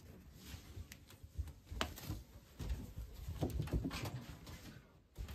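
Bare feet walking on a wooden floor: soft, irregular thumps with scattered light knocks and clicks.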